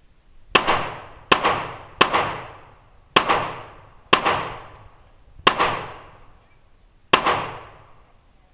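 AR-15 rifle fired semi-automatically, seven single shots at uneven intervals of roughly one to one and a half seconds. Each crack rings out in the echo of an indoor shooting range.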